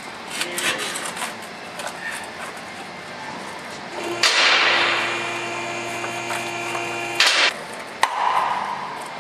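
Plastic radiator fan shroud knocking and scraping against the radiator and surrounding parts as it is worked loose by hand. In the middle, a louder steady machine hum starts suddenly and cuts off about three seconds later.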